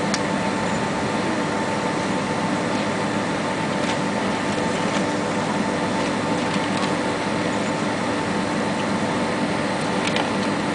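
Steady cabin noise inside a Boeing 767 on the ground after landing: the even hum of the cabin air conditioning and the engines at idle, with a few faint steady tones and a few light clicks.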